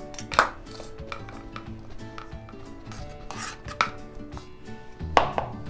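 Kitchen knife knocking and scraping against a plastic cutting board and a plastic bowl as cubed tomatoes are swept off the board into the bowl: a handful of separate knocks and scrapes, the loudest about half a second in.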